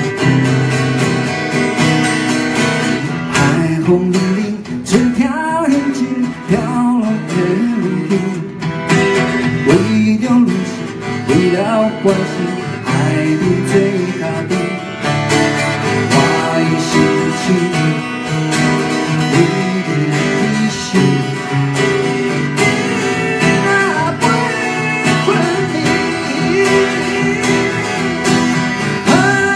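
Two acoustic guitars playing a song live, with a man singing over them in places.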